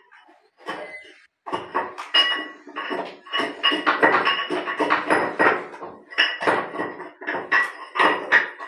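A metal tool knocking and scraping in quick repeated strokes inside the ceramic trap of an Indian squat toilet, with a clinking, ringing sound, starting about a second and a half in. It is loosening debris that is blocking the P-trap and stopping waste from flowing away.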